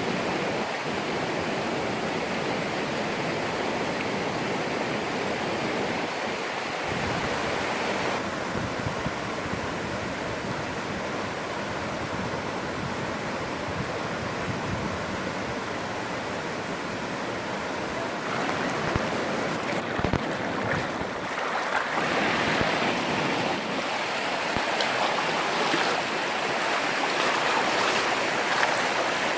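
Mountain stream water rushing over rocks, a steady rush that turns louder and brighter in the last third.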